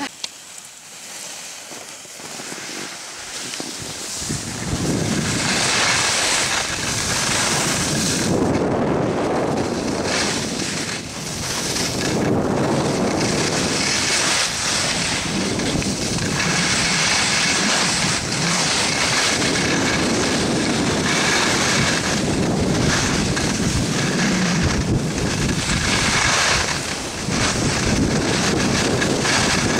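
Wind buffeting the camera's microphone as it skis downhill, mixed with the scrape of skis on packed snow. It starts quieter and grows loud about four seconds in as speed picks up, then rushes on with uneven surges.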